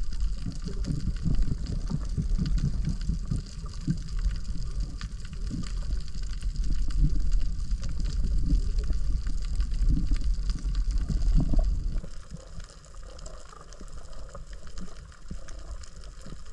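Sea water sloshing and gurgling with a heavy low rumble, which eases off about twelve seconds in.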